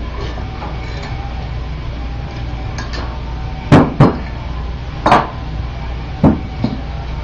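Metal parts of a dome truck wheel assembly clanking together as it is put together by hand: about five sharp metallic knocks, two close together in the middle and the rest over the next few seconds, over a steady low hum.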